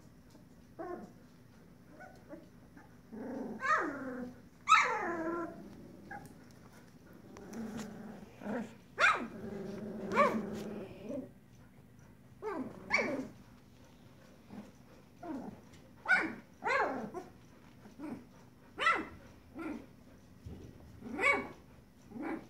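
A litter of 16-day-old puppies making short squeaky calls one after another, a few of them drawn out longer. The loudest come about five seconds in, and a longer run of calls comes around ten seconds in.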